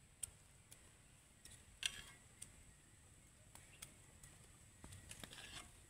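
Near silence, broken by faint scattered clicks and ticks: the sharpest comes about two seconds in, and a quick run of them comes near the end. A thin, steady, high-pitched whine sits underneath.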